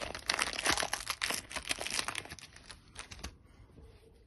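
Plastic packaging crinkling and rustling as it is handled, a dense run of crackles that stops a little over three seconds in, leaving only faint handling sounds.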